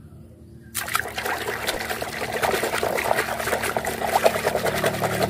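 A hand swishing and scrubbing a muddy plastic toy lobster in a tub of soapy water. The water sloshes and splashes constantly, starting about a second in.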